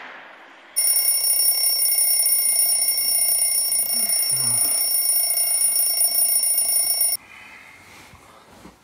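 Alarm clock going off with a steady, high-pitched electronic ring that starts just under a second in and is cut off abruptly about seven seconds in.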